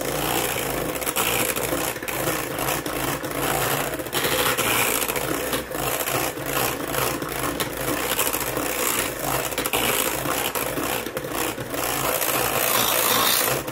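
Electric hand mixer running steadily, its beaters whipping heavy cream in a stainless steel bowl, with frequent clicks and scrapes as the beaters knock against the side of the bowl.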